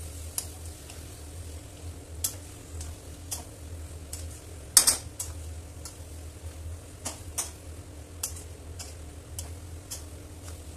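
Metal spatula stirring chicken and masala in an aluminium kadai, with irregular sharp clicks and scrapes of the spatula against the pan, the loudest about five seconds in. A low steady hum runs underneath.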